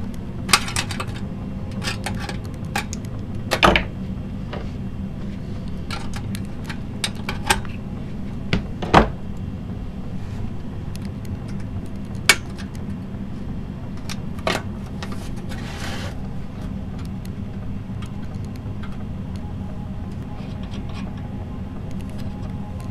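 Thin tin-can steel being gripped and bent with pliers and fingers: scattered sharp metallic clicks, crinkles and scrapes, which stop after about sixteen seconds, over a steady low hum.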